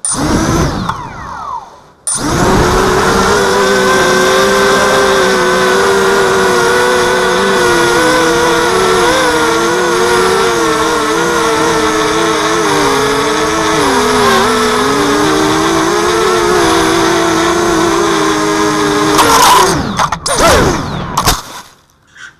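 Brushless motors and propellers of a 230-size FPV mini quadcopter, heard through its onboard camera: a brief spin-up that dies away, then from about two seconds in a steady whining buzz whose pitch wavers with the throttle. Near the end come a few sharp surges and falling glides as the quad comes down in the grass, and the motors stop.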